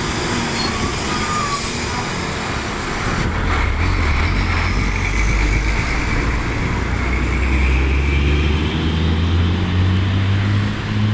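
Bus engine running amid road traffic, its low hum rising in pitch near the end as the engine picks up.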